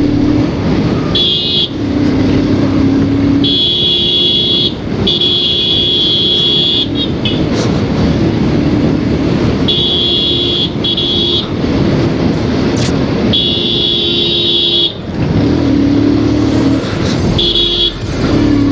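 A vehicle horn honked about seven times in short and longer blasts, some over a second long. A motorcycle engine runs steadily underneath, with traffic and road noise.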